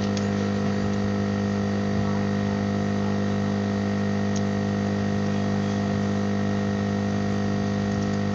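Steady low electrical hum with many evenly spaced overtones, from powered equipment on an electronics repair bench. A couple of faint clicks come as phone parts are handled, near the start and about four seconds in.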